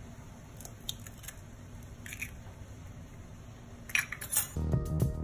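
A raw egg tapped on a glass bowl and cracked open: a few light clicks, then a quick cluster of small clicks and taps about four seconds in as the shells are set down. Background music comes in near the end.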